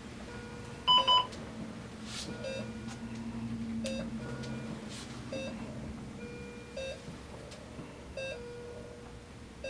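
Cardiac monitor beeping once per heartbeat, a short beep about every 1.4 seconds: a slow rate in the 40s, sinus bradycardia. About a second in, two louder, higher beeps sound close together.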